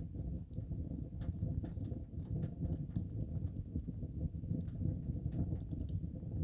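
Wood fire burning, with irregular sharp crackles and pops from the burning wood over a steady low rumble.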